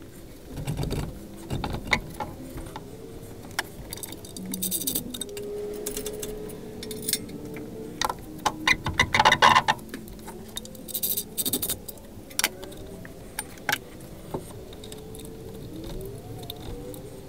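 Metal hand tools and bolts clinking and clanking in irregular bursts, with scattered sharp knocks, while work is done at the engine-to-transmission bellhousing around the starter.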